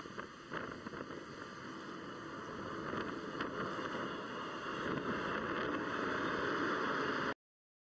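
Jet engines of a formation of fighter aircraft flying over, a steady rushing roar that grows louder and cuts off abruptly near the end.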